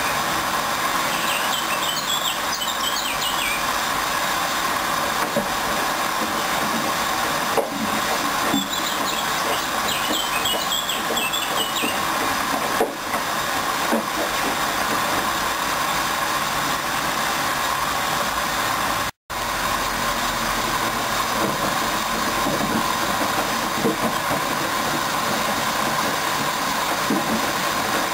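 Hoover Dynamic Wash 10+ washing machine running through its mini-load wash programme, a steady mechanical hum with a few soft knocks. Two short runs of high squeaky chirps come early and again around the middle.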